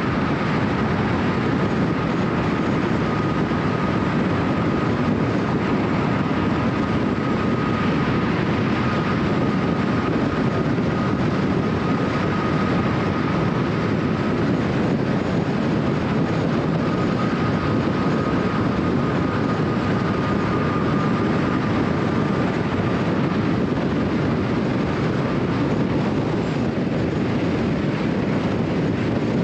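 Car driving at highway speed: steady road and tyre noise with a faint, even whine above it.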